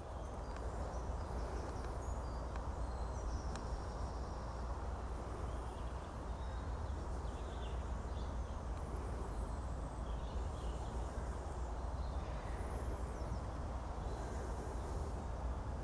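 Woodland outdoor ambience: a steady low rumble and hiss, with small birds singing in short high phrases every second or two.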